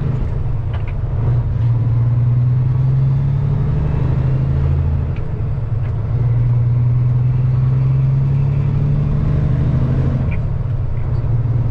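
Peterbilt semi-truck's diesel engine heard from inside the cab while driving, a steady low drone that dips briefly about a second in and again around the middle.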